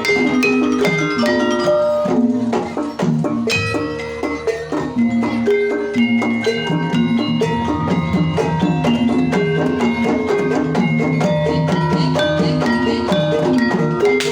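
Banyumasan tayub gending played on Javanese mallet percussion: many short struck metal or bamboo notes interlocking in a quick, steady rhythm, with drum strokes underneath.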